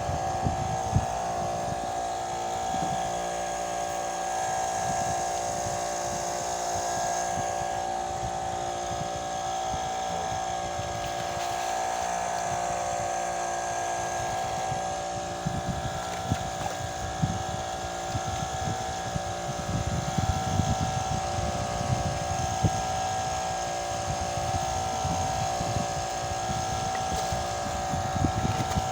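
Motorboat engine running at a steady drone, with wind gusting on the microphone, strongest in the middle of the stretch.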